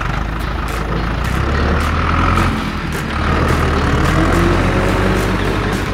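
Truck engine running, a steady heavy low rumble that swells twice.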